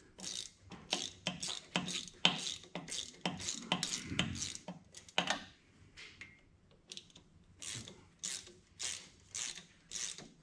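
Hand ratchet clicking in short, quick strokes, about two a second, as it turns the bolts at a driveshaft flange. The strokes stop for about two seconds midway, then start again at the same pace.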